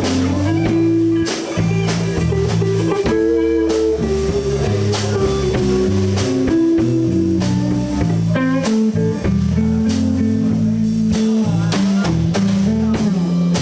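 Live blues trio of guitar, bass guitar and drum kit playing an instrumental break in a slow minor blues, the guitar carrying the lead line between sung verses.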